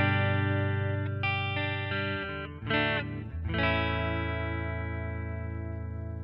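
Electric guitar (Fender Telecaster) played through a clean Fender Twin amp model with an LPB-1-style booster pedal. A chord is strummed with a few notes changing over it, then a short chord, then a final chord about three and a half seconds in is left ringing and slowly fades.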